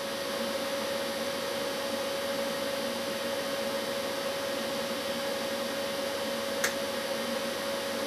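Steady background hiss with a constant mid-pitched hum tone. About two-thirds of the way through comes a single small click, as the plastic toslink connector is snapped shut over the optical fiber.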